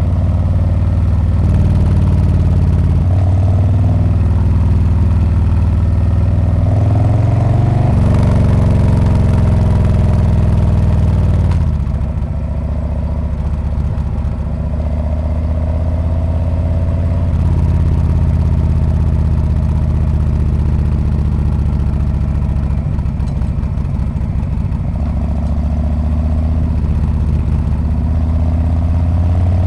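Harley-Davidson Street Bob's V-twin running through its exhaust while riding. The engine note steps up and down with the throttle, rises for a few seconds about a third of the way in, then falls off as the throttle closes and settles into a steady cruising beat.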